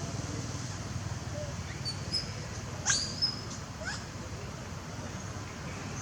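A young monkey squealing: three short, high-pitched cries about two to four seconds in, the loudest one sweeping sharply up in pitch, the distress cries of a juvenile wanting to nurse. A steady low rumble runs underneath.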